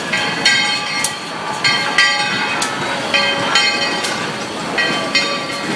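Steam locomotive's bell ringing about twice a second as the locomotive passes close by, each sharp strike ringing on, over the rumble of the train.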